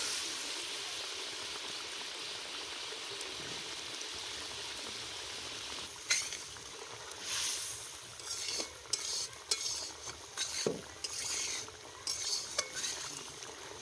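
Egg and radish curry simmering in a large metal wok with a steady hiss. About six seconds in, a metal spatula starts stirring, scraping and clinking against the pan in irregular strokes.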